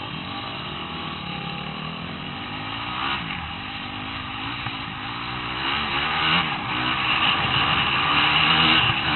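Motocross bike engine running under load on a dirt track, its pitch rising and falling with the throttle, getting louder from about six seconds in as it accelerates.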